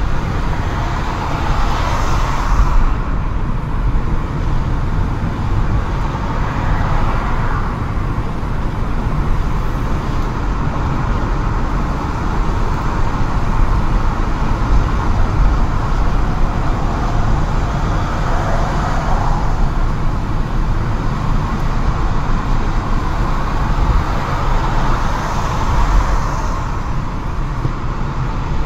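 Steady road and engine noise of a car driving on a multi-lane road, heard from inside the cabin. It swells a few times as the car goes along and traffic passes.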